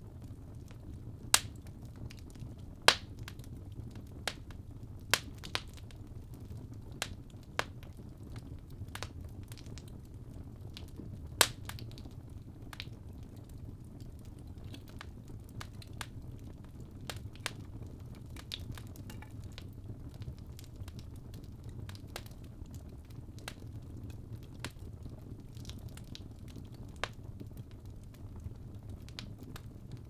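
Fire burning in a fireplace: a steady low rumble of flames with scattered sharp crackles and pops. Several louder pops come in the first dozen seconds, then smaller, sparser crackles.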